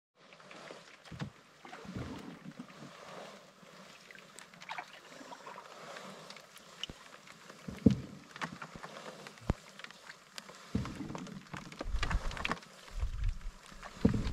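Quiet paddling of a wooden canoe: faint water sounds with scattered light clicks and knocks, and a few low thumps near the end.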